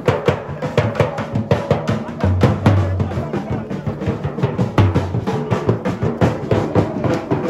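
Procession drums playing a fast, steady beat: quick sharp strikes over deep bass-drum thumps that come every second or two.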